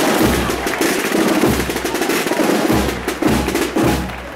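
Percussion section of a processional wind band playing snare drums in a rattling roll, with heavy bass drum strokes falling about five times.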